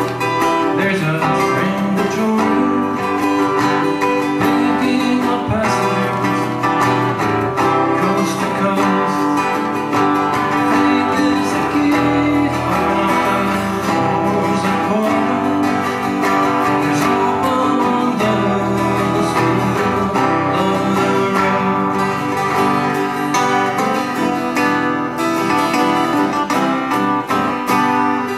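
Two acoustic guitars playing together in a live duet.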